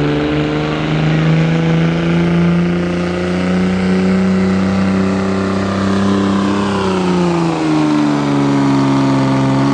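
A Cummins-powered Ram diesel pickup's 6.7-litre turbo inline-six running flat out under heavy load as it drags a pulling sled. Its note is loud and held steady, then sinks in pitch over the last few seconds as the sled's weight pulls the revs down.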